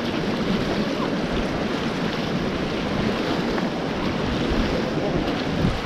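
Steady rush of river water around an inflatable raft during paddling, with wind buffeting the microphone.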